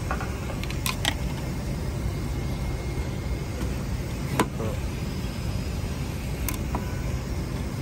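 Steady low drone of an airliner cabin, with a few light clicks and knocks as the seat console and its storage compartment are handled.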